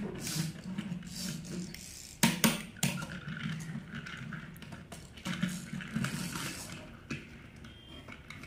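Plastic toy truck pushed across a wooden tabletop: wheels rolling and scraping, with irregular sharp plastic knocks, the loudest a little over two seconds in. The sound grows fainter in the last second or so.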